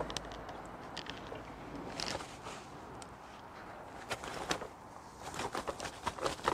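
Scattered small clicks, knocks and rustles of a landing net and fishing tackle being handled on a fishing platform while a fish is unhooked, busiest near the end, over quiet outdoor background.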